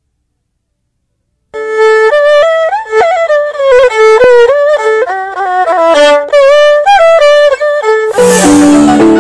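Theme music starting after about a second and a half of silence: a solo fiddle melody with sliding notes. About eight seconds in, a crash and lower sustained chords come in.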